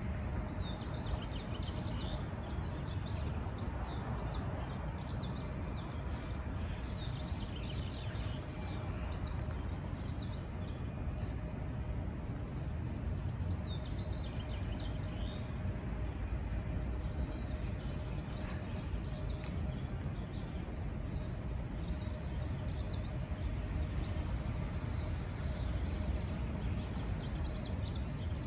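Small birds chirping in short bursts over a steady low rumble of street ambience, with a faint steady hum underneath.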